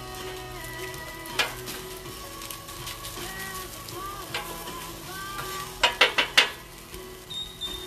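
Taco meat sizzling on a Blackstone flat-top steel griddle, with a metal spatula tapping and scraping on the griddle top: one sharp tap about a second and a half in, and four quick taps near six seconds. Music plays underneath.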